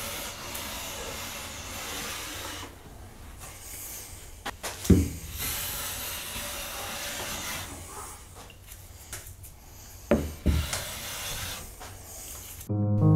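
Clifton No. 4½ smoothing plane shaving an oak tabletop by hand: long hissing strokes of the iron through the wood, with a solid knock about five seconds in and again about ten seconds in as the plane meets the board between strokes.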